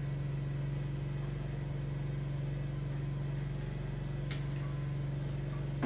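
A machine running with a steady low hum, with one short sharp click about four seconds in.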